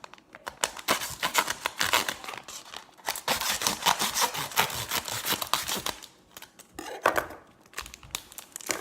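Wrapper on a pack of baseball trading cards being cut and torn open with a knife: a dense, crackly rustle that stops about six seconds in, followed by a few lighter handling noises.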